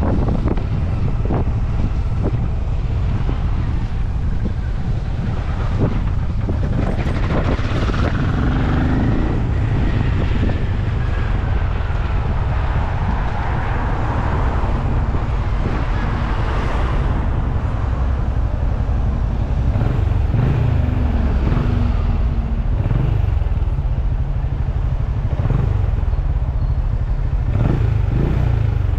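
Benelli Imperial 400's air-cooled single-cylinder engine running as the motorcycle is ridden, heard from the rider's seat. The engine note rises and falls several times in the second half.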